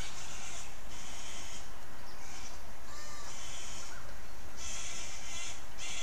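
Repeated harsh animal calls in the surrounding bush: about six rasping bursts, each half a second to a second long, with faint whistled bird notes between them.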